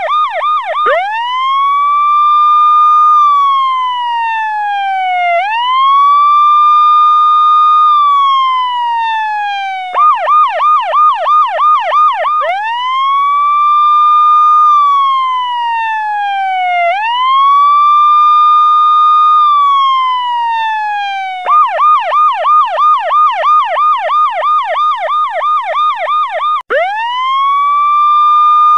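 Electronic police-style siren sound effect, looping. It alternates between a fast yelp of about three chirps a second and a slower wail that rises, holds briefly and falls. The yelp plays three times, starting about ten and about twenty-one seconds in, with a pair of wails between each.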